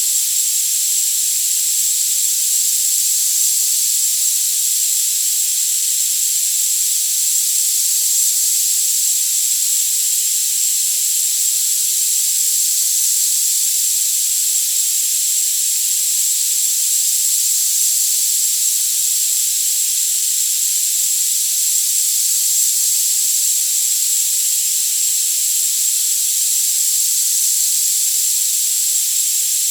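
Tinnitus-masking sound: a steady, unbroken high-frequency hiss with all the low end cut away, and a single high-pitched tone held constant on top of it.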